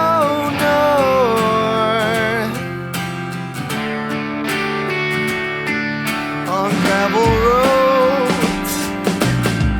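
Instrumental stretch of an indie rock song: strummed guitar and drums, with a sliding melody line heard twice.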